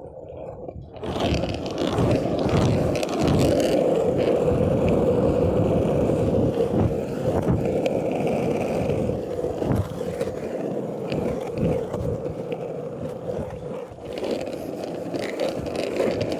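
Longboard wheels rolling and rumbling steadily on rough pavement, a loud continuous grinding rumble that starts about a second in.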